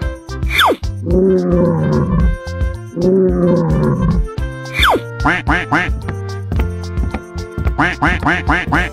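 Cartoon soundtrack: music under animal sound effects. A falling slide-whistle effect comes twice, two long animal roars fall between them, and then quick runs of duck quacks, about five a second, arrive after the second whistle and again near the end.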